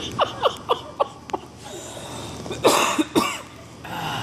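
Quick laughter, four or five short falling 'ha' sounds, then a man coughing twice about half a second apart after gulping ketchup through a straw.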